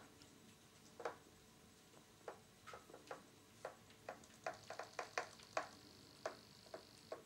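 A dozen or so light, irregular taps and clicks as cats paw at a plastic tub of water and the small Robo Fish toy swimming in it, with a faint high whine coming and going in the background.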